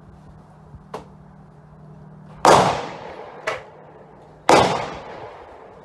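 Two loud gunshots about two seconds apart, each with a long echoing tail, most likely rifle shots from other shooters on the firing line; a shorter, sharper crack falls between them.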